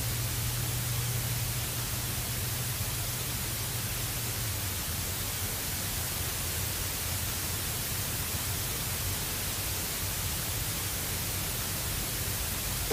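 CRT television hissing with static, a steady hiss with a low hum under it that eases about four and a half seconds in. The hiss cuts off suddenly at the very end.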